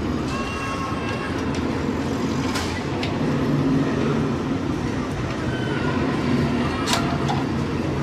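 Copper pipe being worked in a flaring block and flaring tool: two sharp metal clicks, about two and a half seconds in and about seven seconds in, over a steady background rumble.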